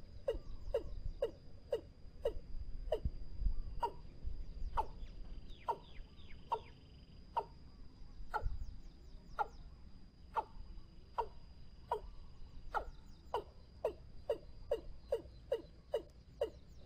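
Watercock calling: a long series of short downward-sliding notes, about two to three a second, slowing in the middle and quickening again near the end. A steady faint high tone runs underneath.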